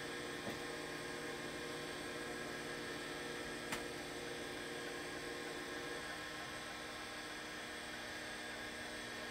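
Steady hum from a running vintage Seagate ST-225 MFM hard drive and its bench PC during a DOS format. There is one faint tick about three and a half seconds in, and the hum's tone shifts slightly about six seconds in.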